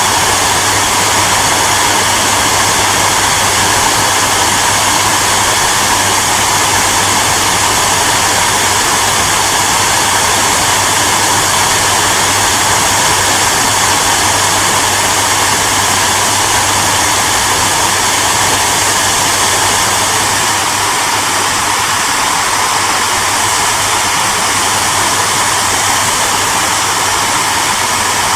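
Hair dryer running steadily: a constant blowing hiss over a low motor hum, a little softer for the last several seconds.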